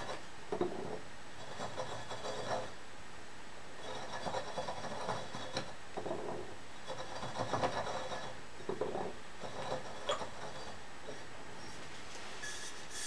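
Marker tip rubbing around an aluminium bottle as the bottle is turned against it on a workbench, marking a cutting line. It comes in several spells of short scraping strokes with a few light knocks.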